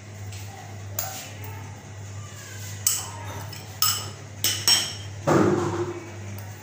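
Kitchen containers and dishes being handled and set down on a counter: a series of sharp knocks and clinks, the loudest about five seconds in, over a steady low hum.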